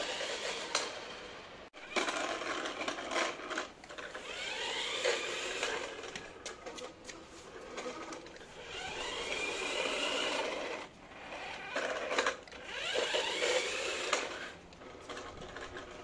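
Disney Minnie bakery mini remote-control car's electric drive motors whirring in stop-start bursts of one to three seconds, the whine rising and falling as the car drives and turns; somewhat loud.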